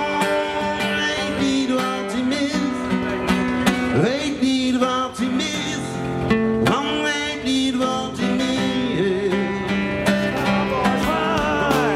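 Live band playing a song, with an acoustic guitar strummed prominently.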